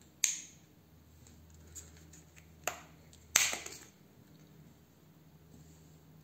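Small plastic wax-melt pot being handled and its snap-on lid pulled off: a few sharp plastic clicks, the loudest about three and a half seconds in.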